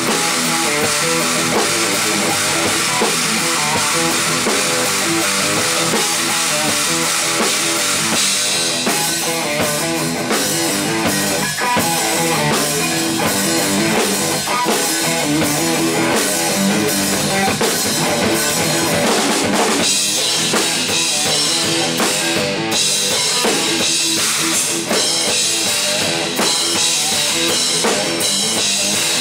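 Instrumental rock trio playing live: electric guitar, electric bass and drum kit. The music gets brighter and busier about eight seconds in, with a rising sweep about twenty seconds in.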